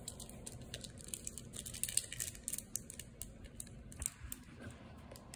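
Faint crinkling and ticking of a foil Pokémon booster pack wrapper and cards being handled, in many small, irregular clicks.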